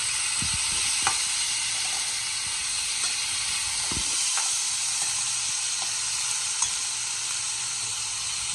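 Pre-soaked moth beans sizzling steadily in hot oil with cumin seeds, with a few short clicks as they are stirred in the pan.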